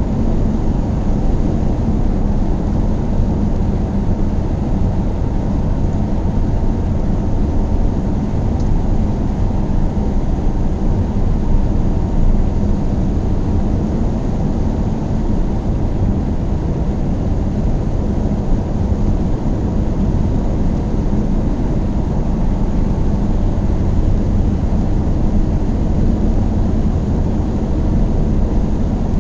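Car driving steadily on the road: a constant low rumble of engine and tyre noise that stays even throughout.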